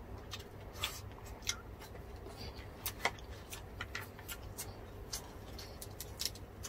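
Close-miked chewing of crispy deep-fried pork skin and rice: faint, irregular crunches and wet mouth clicks from two people eating.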